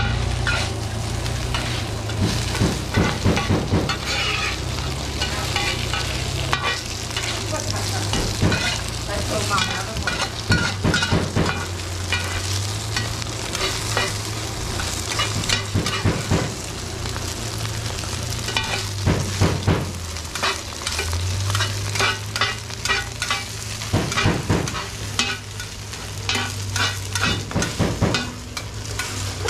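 Hoi tod batter frying in hot oil in a wide black pan, sizzling steadily, while a metal ladle and spatula scrape and clack against the pan over and over as the batter is pushed and turned. A low steady hum runs underneath.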